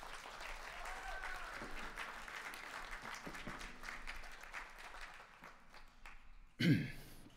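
Audience applauding, the clapping thinning out over about six seconds; a voice speaks briefly near the end.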